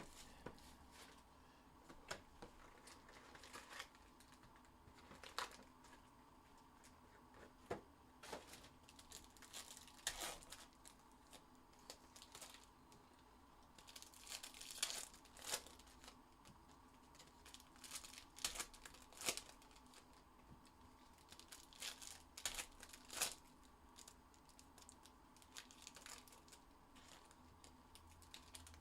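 Trading card packs and their plastic wrapping being torn open and crinkled by hand, in scattered short crackles and rips.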